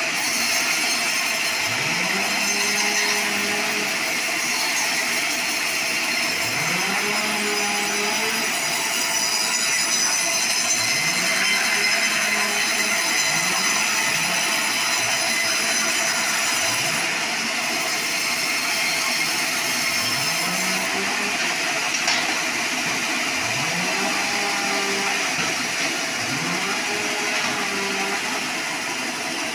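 Band sawmill blade cutting lengthwise through a hardwood log, a steady hissing rasp with a high whine. Underneath, a quieter low hum swoops up in pitch every few seconds.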